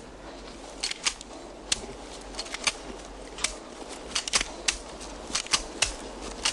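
A run of sharp, irregular mechanical clacks, roughly two a second and uneven in spacing.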